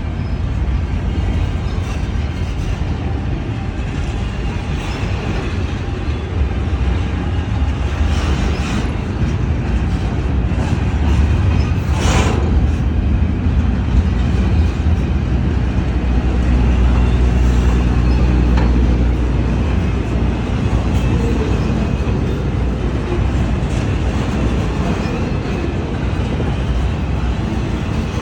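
Long container freight train passing slowly at close range, its steel wheels rumbling steadily over the rails. Partway through there is one short, sharp clank or screech.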